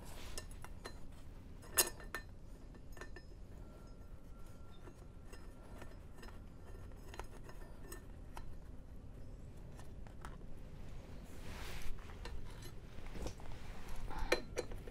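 Faint, scattered metal clinks as a flat steel bar and bolts are handled and set against a tractor's flywheel, with one sharper clink about two seconds in and a few louder clinks near the end.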